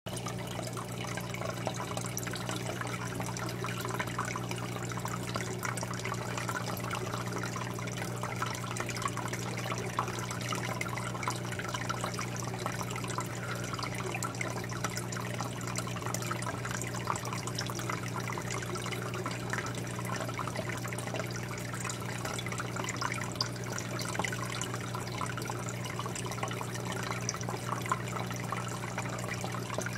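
Aquarium water trickling and bubbling with steady fine crackle, over a low steady hum from a running aquarium filter.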